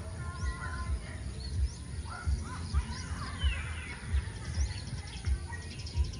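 Outdoor birds chirping and calling, with many short rising and falling whistles, over repeated low thumps.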